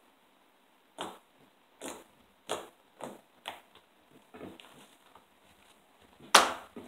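Slime being pressed and kneaded on a wooden tabletop: a string of short pops and squelches, about one every half second, then fainter ones. A louder sharp smack comes about six seconds in as the lifted slime is brought down onto the table.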